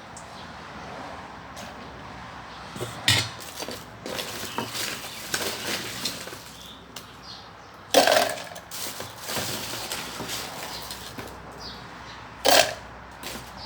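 A spoon and blender jar clinking and knocking while another spoonful of syrup is added. Light clatter runs throughout, with three sharp knocks about three, eight and twelve and a half seconds in.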